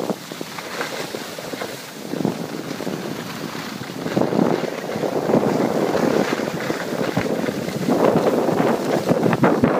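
Wind rushing over the microphone of a camera carried by a moving skier, mixed with the hiss of skis sliding on packed snow. It surges louder about four seconds in and again near the end.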